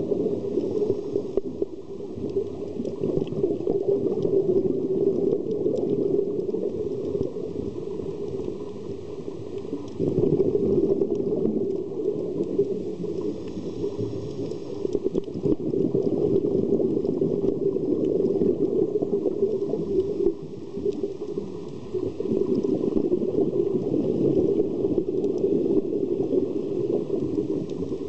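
Underwater noise picked up by a scuba diver's camera in its housing: a dense, muffled low rumble with bubbling from the diver's exhaled regulator bubbles, swelling and easing over several seconds with faint tiny clicks above it.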